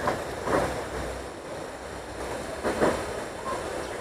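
A few soft clicks and knocks of an air rifle being handled and reloaded between shots, over a steady background rush of noise.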